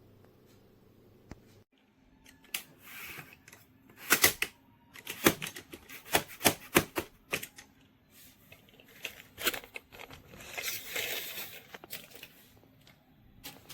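Irregular sharp clicks and knocks, a dozen or so, with two short stretches of scraping or rustling noise, one early on and one about two-thirds through: objects being handled.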